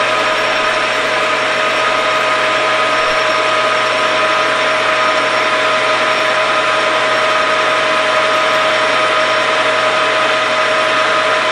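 Grizzly G4003 metal lathe running at a steady speed: an even whine of motor and gears over a hiss.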